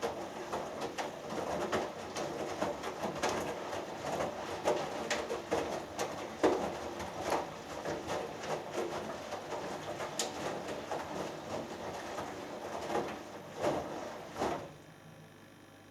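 Hoover Dynamic Next washing machine tumbling laundry in its rinse water: wet thuds and sloshing come irregularly as the drum turns, then stop about fifteen seconds in.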